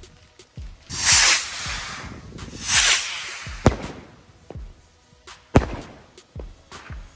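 Firework rockets from a 'Viel Glück' rocket set going off. There are two loud hissing rushes, about one and nearly three seconds in, followed by sharp bangs and pops of the bursts, the loudest about five and a half seconds in.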